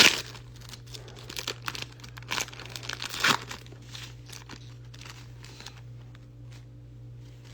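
Foil wrapper of a Japanese Pokémon card booster pack being torn open and crinkled: sharp crackling in the first three seconds or so, then lighter rustling as the cards are handled.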